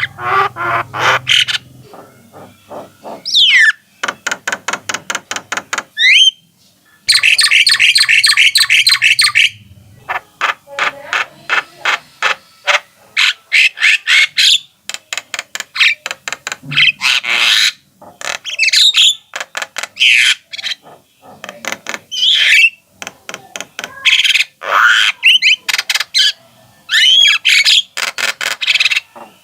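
Javan myna (jalak kebo) in continuous song: long runs of rapid, sharp, chattering notes mixed with rising and falling whistles and harsh squawks.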